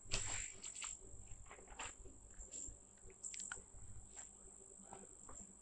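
Faint, steady high-pitched trill like a cricket's, with a few soft knocks and rustles scattered through it, the loudest just at the start.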